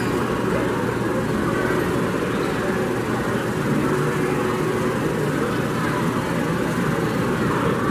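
Steady traffic noise, an even rumble with no distinct events.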